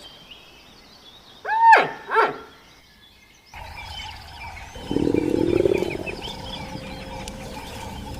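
Two loud arching animal calls in quick succession. Then a sudden change to a background of birds chirping, with a low rough roar from a large animal lasting about a second.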